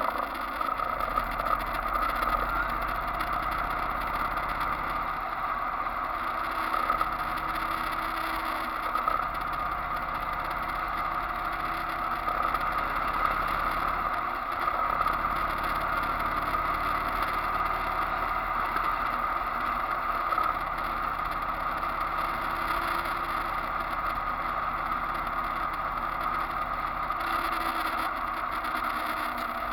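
Motorcycle running at steady highway cruising speed: a constant engine drone that shifts a little in pitch now and then, under steady wind rush on the bike-mounted camera's microphone.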